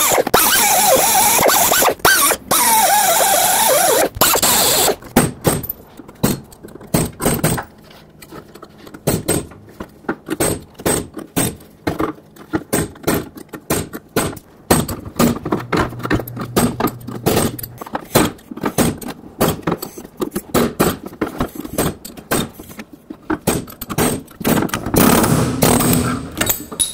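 A cutoff wheel grinding through the metal lip of a control-arm bushing for about the first five seconds, its pitch wavering as it bites. Then a long run of irregular metallic clicks, knocks and scrapes as a pry tool or chisel works the cut bushing end loose from the arm, growing denser and louder near the end.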